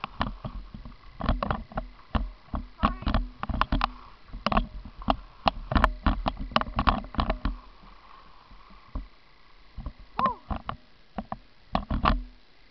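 Downhill skiing heard from a camera carried by the skier: irregular knocks and scrapes of skis and camera on hard-packed snow, over wind rumble on the microphone. The knocks come thick and fast at first and thin out after about eight seconds.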